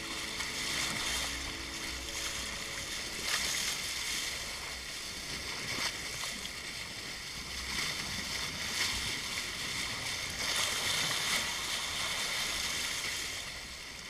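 Water rushing and splashing along the hull of a sailing yacht under way, its bow wave swelling in surges every second or two. It fades away near the end.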